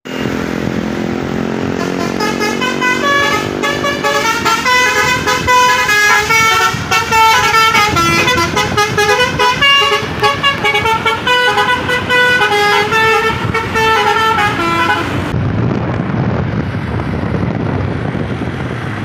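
Basuri 'telolet' musical vehicle horn playing a fast melody of stepped notes after low held notes at the start. It stops suddenly about fifteen seconds in, and only a low rumble remains.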